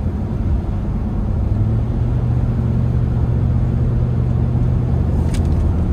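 Steady low rumble of a vehicle's engine and tyres on a snowy road, heard from inside the moving cabin, with one brief click about five seconds in.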